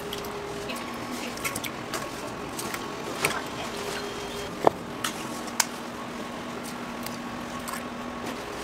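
Eggs being cracked one after another on the rim of a stainless steel pan: irregular sharp taps, the loudest about four and a half seconds in, over a steady hum.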